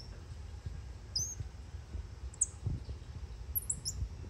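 Common squirrel monkeys giving short, very high-pitched squeaks about once a second, with several close together near the end.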